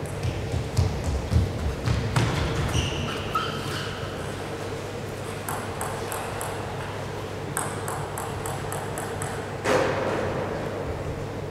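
Celluloid-type table tennis ball clicking on rackets and table during a rally: quick runs of sharp ticks, about four or five a second, from about five seconds in and again around eight seconds, with a louder knock near ten seconds. A few short pings and low thumps come before the serve.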